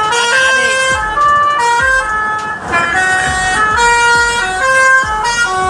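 Basuri multi-tone musical horn on a Primajasa bus playing a melody: several pitched notes sound together and step from one to the next every fraction of a second.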